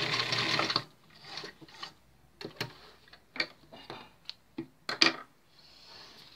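Sewing machine stitching fast and evenly, stopping abruptly just under a second in as the seam is finished. After it, scattered small clicks and soft rustles as the fabric is handled and drawn out from under the presser foot.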